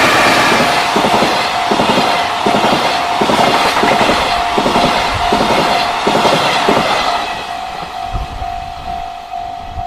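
Freight train running past over a level crossing, its wheels clacking over the rail joints in an even rhythm of about three clacks every two seconds, then fading away about seven seconds in. Through it the crossing's warning bell keeps ringing in quick, steady pulses.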